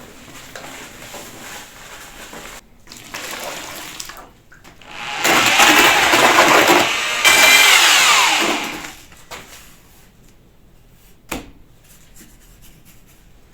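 An electric hand power tool runs for about two seconds, stops briefly, runs again and winds down with a falling whine; quieter handling noise comes before and after.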